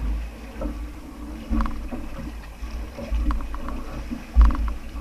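Water sloshing around a bamboo outrigger boat, with low rumbling buffets and a few sharp knocks as a squid is hauled out of the sea with a pole onto the outrigger. The loudest knock comes near the end.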